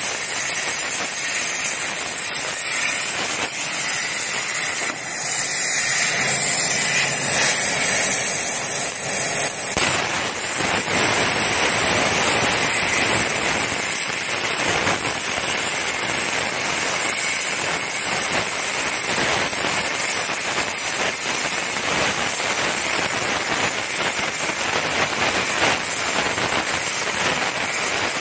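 CNC plasma cutter's arc cutting through steel plate: a steady loud hiss with fine crackling. The sound grows fuller about ten seconds in.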